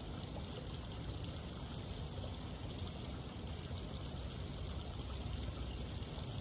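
Garden pool fountain and water feature running, a steady trickling and splashing of falling water.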